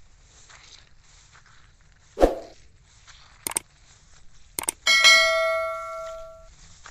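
Subscribe-button animation sound effects: a brief swoosh, then two sharp mouse-style clicks, then a notification bell dinging and ringing out for about a second and a half, over faint outdoor background noise.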